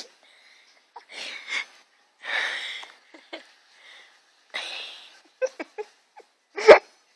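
A pet making short breathy noises: four or so noisy bursts with pauses between them, a few small clicks, then a sharp loud burst near the end.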